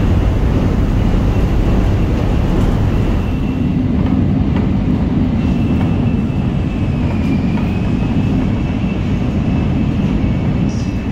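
Shinkansen bullet train running, a steady rumble with a faint high whine over it.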